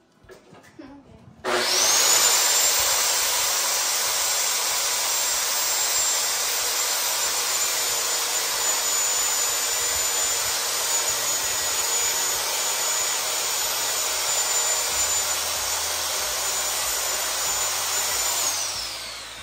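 An electric power saw spins up with a rising whine, runs steadily for about seventeen seconds trimming a blade width off the end of a wooden upright, then winds down near the end.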